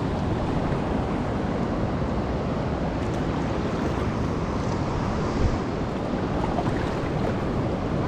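Whitewater rapid rushing: a steady roar of fast river water, with a small knock about five and a half seconds in.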